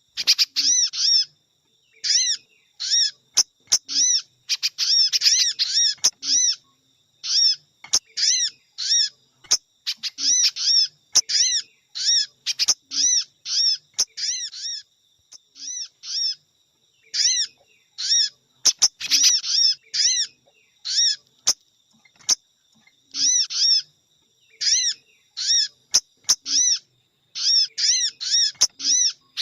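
Bird-lure recording of sogon calls combined with spiderhunter calls: rapid runs of short, high, arched chirps coming in bursts with brief pauses, and a few sharp clicks in between.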